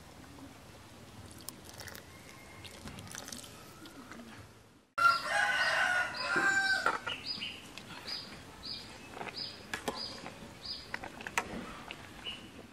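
A rooster crows loudly about five seconds in, a call of about two seconds. It is followed by a run of short, high-pitched bird chirps, about three a second.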